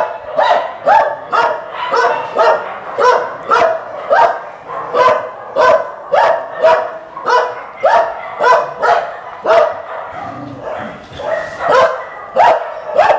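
A dog barking over and over in a steady rhythm, about two barks a second, with a short pause about ten seconds in before it starts again.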